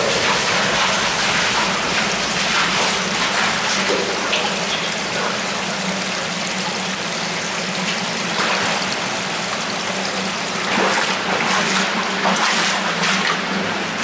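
Steady rush of water flowing along a storm-drain collector pipe, with a few louder surges in the second half.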